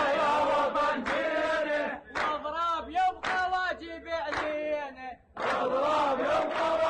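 A crowd of young men chanting in unison, with one man's voice leading alone in the middle before the crowd comes back in about five seconds in.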